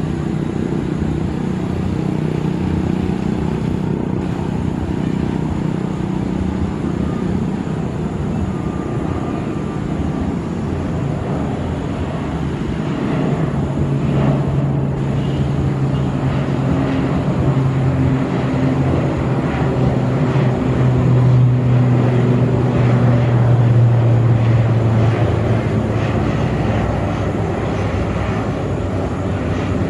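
ATR 72-600 twin turboprop taking off and climbing out at takeoff power: a steady propeller and engine drone with a low hum that grows louder as the aircraft climbs past, loudest a little after the middle, then easing off near the end.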